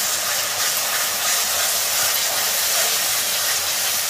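Onion-tomato masala paste sizzling in hot mustard oil in a kadai as it is stirred, a loud steady hiss. This is the bhuna stage, the spices frying down in the oil.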